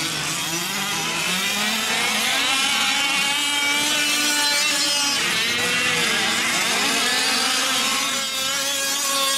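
Several gas-powered 5th-scale RC off-road trucks' small two-stroke engines running at once, their buzzing pitches rising and falling as they rev up and back off.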